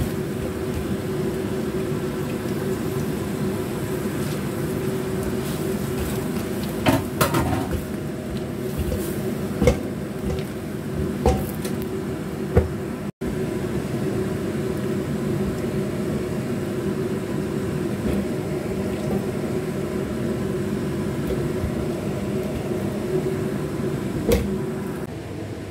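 A steady low hum, with a few sharp knocks from about a quarter of the way in to the middle and one more near the end, as a silicone spatula stirs a shrimp and cucumber stir-fry in a steel wok.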